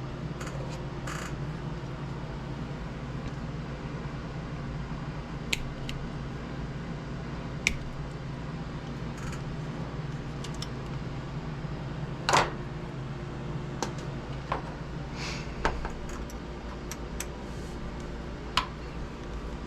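Scattered short metallic clicks and taps, about a dozen over the stretch, as small frame bolts are worked out of an RC helicopter's side frame and set down on a spare metal frame. A steady low hum runs underneath.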